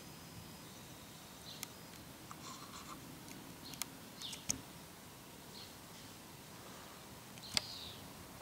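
Faint, short, falling bird chirps every second or two over a quiet outdoor background, with a few sharp clicks, the loudest near the end.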